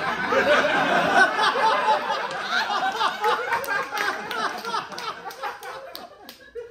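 Audience laughing together, loud at first and dying away over several seconds, with a few sharp claps near the end.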